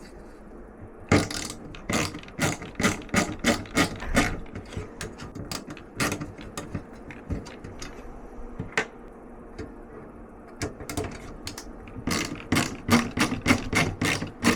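Screwdriver working the mounting screws of a computer case fan: runs of sharp ratcheting clicks, about three or four a second, with a pause in the middle.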